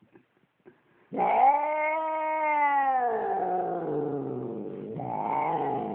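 A domestic cat's aggressive growl-yowl: after a second of quiet, one long drawn-out yowl that rises and then sinks in pitch, followed about five seconds in by another growling yowl.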